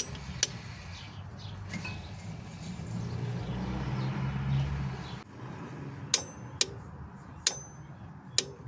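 Metal tools clinking: four sharp clinks with a brief ringing in the last few seconds, over a low hum that swells and fades in the middle.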